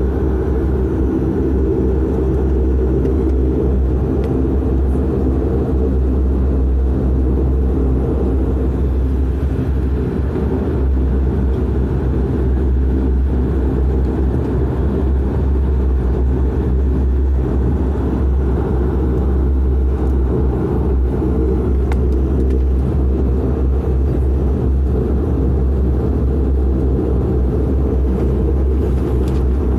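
Cabin noise of a De Havilland Canada Dash 8-400's Pratt & Whitney PW150A turboprops at taxi power: a steady propeller drone with a deep hum underneath, heard from inside the cabin.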